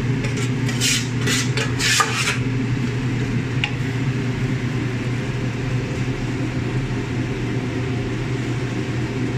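A metal spoon scraping and clattering against a metal pan as marinated chicken is scraped in, in a quick run of knocks over the first two seconds, then a single click. A steady low hum runs underneath.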